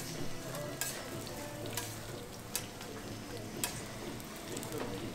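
Hotteok (Korean sweet pancakes) sizzling as they fry in oil on a griddle, with sharp clicks about once a second.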